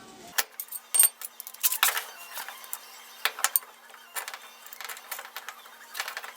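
Irregular metallic clicks and clinks of a rusty Ettco keyless drill chuck being worked on by hand and with tools, the loudest knock about a second in.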